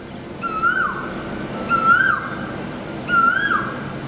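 A bird in the mangroves calling three times, each call a whistled note that rises and then drops off sharply, repeated about every one and a half seconds.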